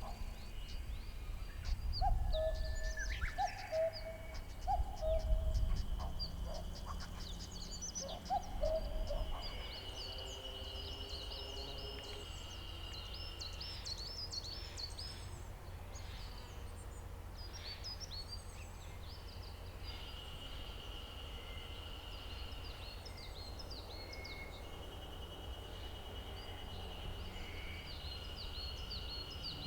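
Several wild birds singing at once: many short high chirps throughout, a few low hooting notes in pairs during the first ten seconds, and a long, steady, high trill that stops and starts again.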